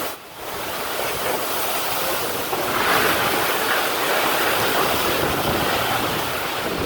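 Tornado winds blowing hard across the microphone: a steady rushing noise after a brief drop at the very start, swelling a little about two and a half seconds in.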